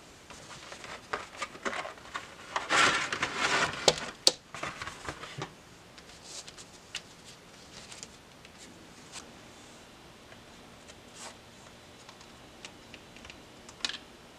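Paper and stiff fiber engine gaskets handled on a workbench: rustling and crinkling, loudest about two to four seconds in with a couple of sharp clicks, then quieter light taps and shuffling.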